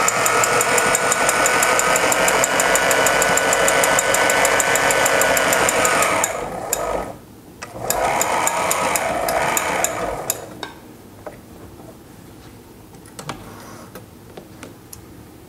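Sailrite LSZ-1 Ultrafeed walking-foot sewing machine stitching a piped seam through four layers of upholstery fabric, its small motor running with a fast, even stitch rhythm. It stops about six and a half seconds in, then sews again for about three seconds as a reverse back tack. After that come a few light clicks as the handwheel is turned by hand.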